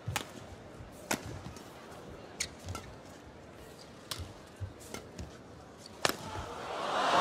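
Badminton rally: rackets strike the feathered shuttlecock with sharp cracks about once a second, about six hits with the loudest near the end, with thuds of footwork between them. In the last second the arena crowd starts to cheer loudly as the rally ends.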